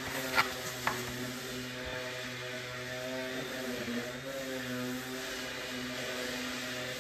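A steady machine hum with a low drone that wavers slightly in pitch, and two sharp clicks about half a second and one second in.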